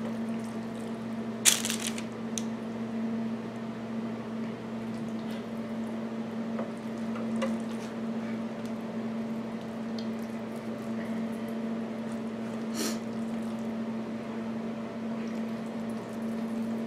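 Soft squishing and scraping of a silicone spatula working a thick, creamy spinach and spaghetti squash filling in a skillet and scooping it into a squash shell, with a sharp knock about a second and a half in. A steady low hum runs underneath.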